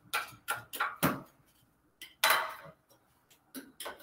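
Lid of a metal stain can being pried open: a quick string of sharp metallic clicks, then a louder clank with a short ring about two seconds in, and a few light clicks near the end.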